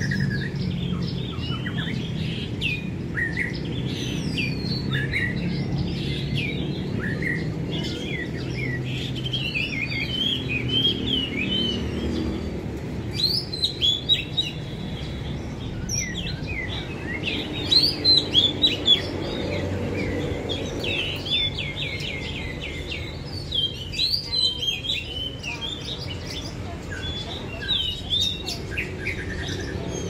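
Several caged red-whiskered bulbuls chirping and singing at once: a busy, overlapping chatter of short rising and falling notes, louder in bursts around the middle, over a low background rumble.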